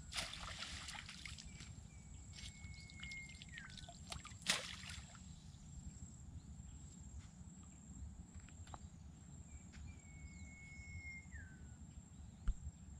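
A mesh crab trap splashes into a muddy creek and sinks, with a shorter, sharper splash about four and a half seconds in as it settles on its rope. A bird whistles twice, each a held note that drops at the end, over a low wind rumble.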